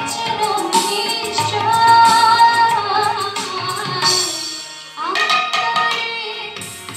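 Live devotional song: a woman singing over harmonium and tabla, with a string instrument struck by sticks. The phrase fades about four and a half seconds in, and a new one starts at about five seconds.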